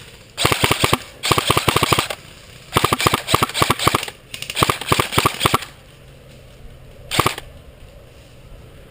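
Airsoft gun firing full-auto: four bursts of rapid clicking shots, about a dozen a second and each roughly a second long, then one short burst near the end.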